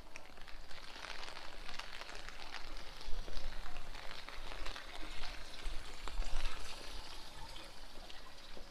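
Steady rain falling on a street: a dense patter of fine drops.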